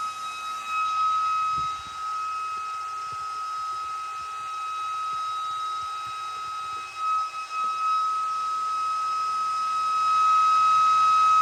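Electric ducted fan driven by a brushless motor, spinning at a constant speed with a steady high whine. It dips briefly about seven seconds in and gets louder near the end.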